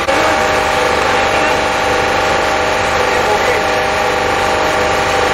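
Large diesel engine running steadily at a constant speed, with several steady tones over a rumbling low end.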